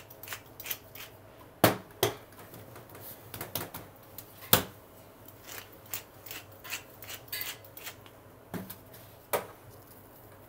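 Wooden pepper mill grinding in irregular crackly bursts, broken by a few sharp knocks of metal on metal.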